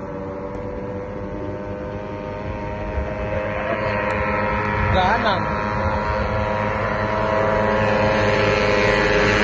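Racing Yamaha Jupiter underbone motorcycle engines running at a steady pitch, growing steadily louder.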